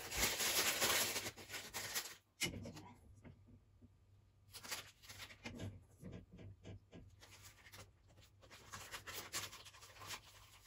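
Plastic piping bag crinkling and rustling as it is opened and handled, loudest in the first two seconds, then quieter rustles and a few light knocks as melted chocolate is spooned into it.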